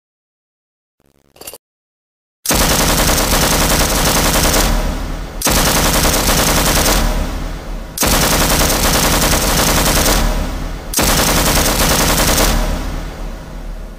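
M249 5.56 mm light machine gun firing four long bursts of fully automatic fire, each about three seconds, following a short quieter sound about a second in.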